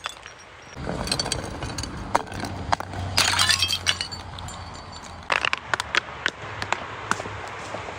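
Glass bottles cracking and breaking: scattered sharp clinks and cracks, with a dense crunching burst of shattering glass about three seconds in, over a low steady rumble that starts just under a second in.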